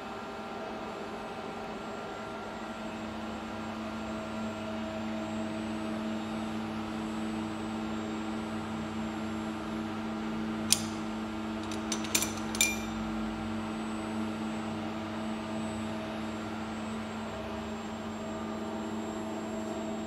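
Industrial bin-picking robot running with a steady machine hum from its motors and controller. A little under eleven seconds in, a sharp metallic click, then a quick cluster of clinks a second later as the gripper reaches into the steel bin and touches the loose metal parts.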